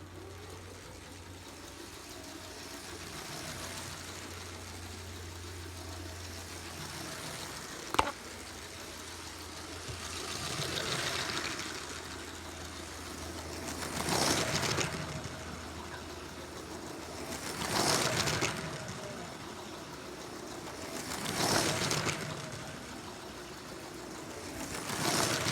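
Motorised LEGO train running around a plastic track. Its motor and wheel clatter swell each time it passes close, about every three and a half seconds from about ten seconds in. A single sharp click comes about eight seconds in.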